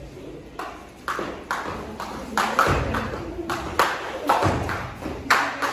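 Jump rope work on a foam mat: the skipping rope slapping the floor and feet landing in a quick, uneven rhythm of about two to three strikes a second, a few of them heavier thuds.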